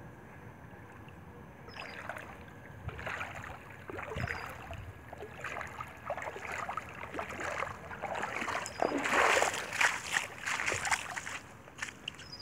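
Water splashing and sloshing in the shallows as a hooked largemouth bass thrashes at the surface while it is being landed. The splashes come in irregular bursts from about two seconds in, loudest about nine to eleven seconds in.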